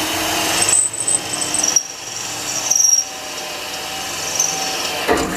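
Electric drill running under load, drilling out spot welds in car-body sheet metal, with a thin high squeal from the bit cutting. It eases off briefly about two seconds in, then runs on and stops near the end.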